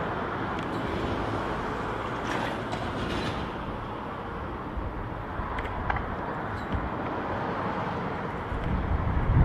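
Steady outdoor street noise with a rushing haze. Near the end a low rumble swells as a time trial bike with a carbon rear disc wheel rolls past close by.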